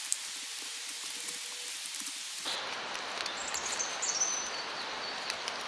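Steady rain falling in woodland, with scattered light knocks and rustles of wooden sticks being laid onto a shelter frame. About two and a half seconds in, the rain's hiss changes abruptly, becoming duller and fuller. A bird chirps briefly about four seconds in.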